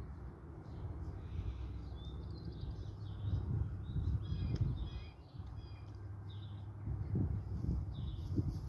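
Small birds chirping off and on, with a busier run of short calls a few seconds in, over a steady low rumble.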